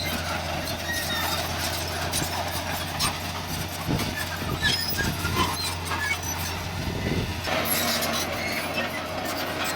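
Bulldozer's diesel engine running steadily under load, with its steel crawler tracks clanking and clicking as it moves.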